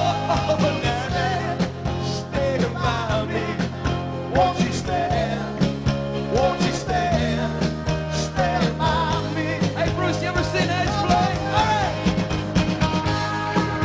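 Background rock music: a wavering lead melody over steady bass and drums.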